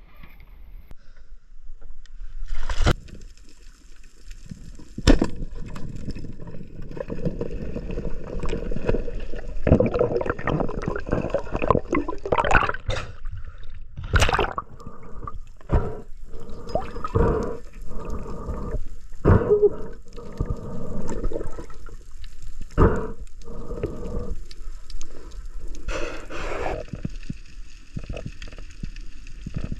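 Water gurgling and splashing in irregular bursts.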